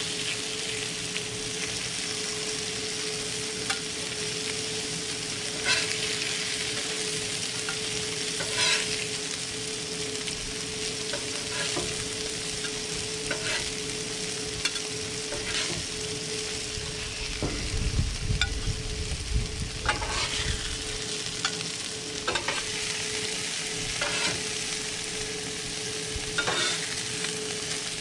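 Walleye fillets sizzling on a hot Blackstone flat-top griddle, with sharp scrapes and clacks of a metal spatula and tongs on the steel cooktop every couple of seconds as the fish is lifted off. A steady hum runs underneath, and a brief low rumble comes about two-thirds of the way in.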